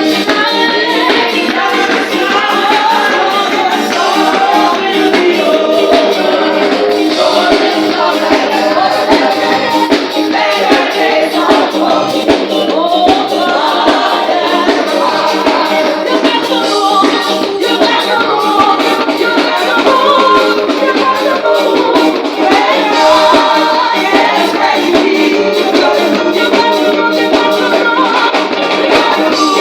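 Music with singing over a steady beat of light percussion.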